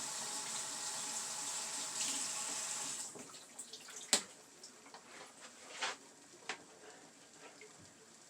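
A steady hiss that stops about three seconds in, then a few sharp clinks and knocks of utensils against cookware, the loudest a little after four seconds.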